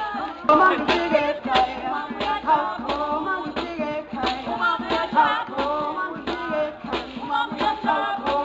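Music with singing voices and percussion.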